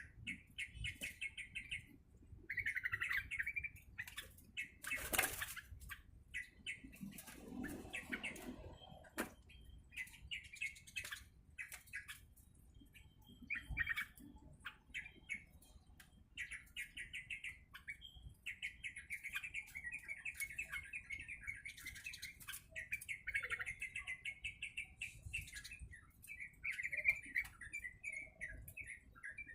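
A caged yellow-vented bulbul (trucuk) chirping and chattering in quick, rattling phrases, with scattered rustles and clicks and a louder rustle about five seconds in.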